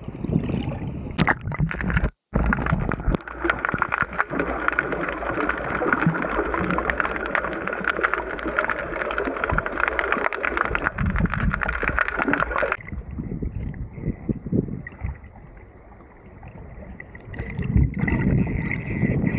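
Sea water sloshing and gurgling around an action camera held half in the water while snorkelling. About two seconds in the sound cuts to a busier stretch full of fine crackles, which ends abruptly around thirteen seconds, leaving softer sloshing at the waterline.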